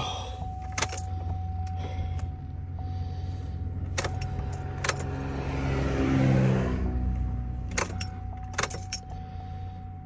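Chevrolet pickup truck's engine running, heard from inside the cab, with keys jangling and a few sharp clicks. The engine note swells briefly about six seconds in.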